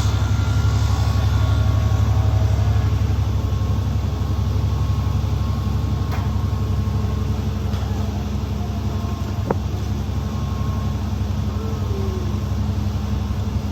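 School bus engine and road noise heard from on board during a ride: a steady low drone, with one sharp click about nine and a half seconds in.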